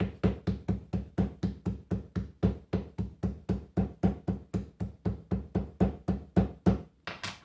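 A metal meat-tenderizer mallet pounding toasted nuts folded in a paper towel on a hard countertop to crush them into small pieces. It gives a steady run of sharp knocks, about four a second, that stops near the end.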